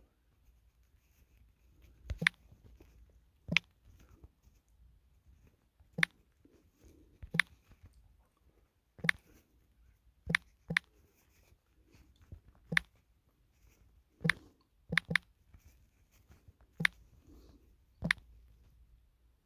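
Sharp, separate taps or clicks, about thirteen, spaced irregularly every one to two seconds, over a faint low room hum.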